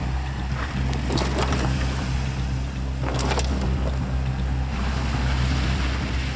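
Small sedan's engine running low and steady as the car drives off over gravel, with two brief rougher rushes of tyre or road noise.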